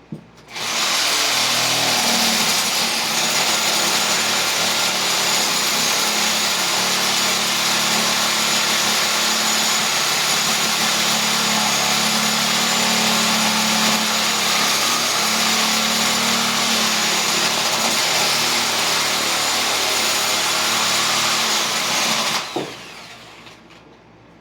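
Sawzall reciprocating saw running steadily as its blade shaves into a wooden carving, starting about half a second in and stopping a couple of seconds before the end.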